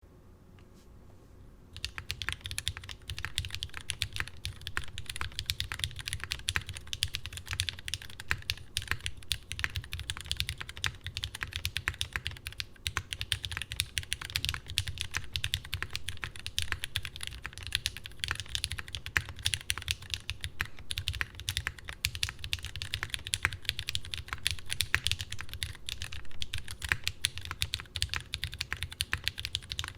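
Continuous fast typing on a gasket-mounted Geonworks F1-8X mechanical keyboard with lubed, filmed Cherry MX Hyperglide Black linear switches and GMK Honor doubleshot ABS keycaps: a dense stream of soft clacks with a deep thock from bottoming out. The typing starts about two seconds in.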